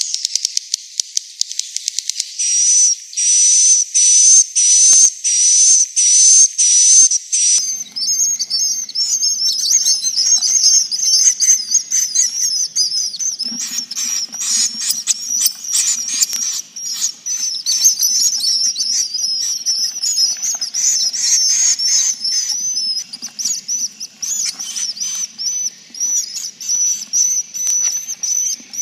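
Edible-nest swiftlet calls from a roosting-lure recording used to draw swiftlets into a swiftlet house. A quick run of clicks is followed by about eight buzzy, whistling calls in a row. From about eight seconds in comes a dense chorus of many overlapping high twittering chirps.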